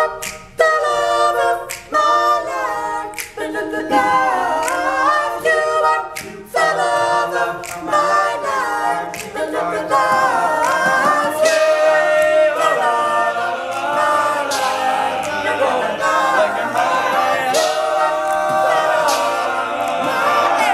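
All-male a cappella group singing wordless chords in close harmony, with sharp vocal-percussion hits keeping a beat under the voices.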